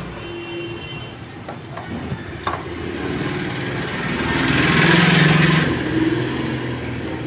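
An engine running steadily nearby, swelling louder for about a second around five seconds in, with a couple of light metallic clicks from hand work on a motorcycle cylinder head.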